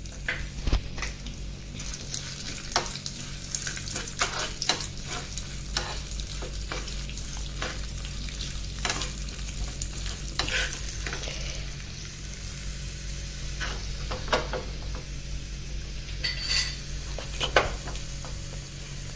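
Urad dal, cumin seeds and curry leaves sizzling in hot ghee in a small pan as a tempering, with a metal spoon stirring and clicking against the pan again and again.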